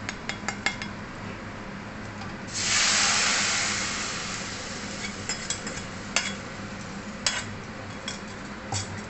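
A watery mustard paste is poured into hot oil in a steel kadai and sizzles loudly, starting suddenly about two and a half seconds in and dying down over a couple of seconds. Before and after it, a metal spatula clinks and knocks against the pan as the paste is stirred.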